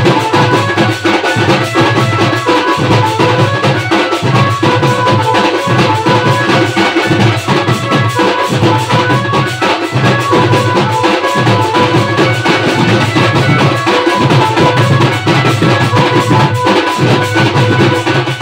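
Band party playing a Koraputia folk song: drums beaten by hand and stick keep a fast, dense beat under a sustained melody line, all loud and continuous.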